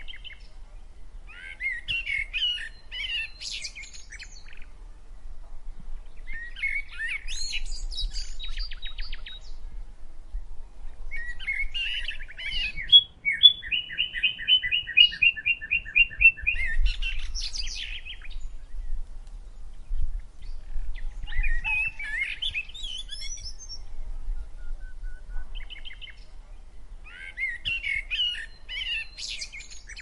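Songbird singing in short, varied warbling phrases every few seconds, with one longer rapid trill of evenly repeated notes, about six a second, a little before the middle.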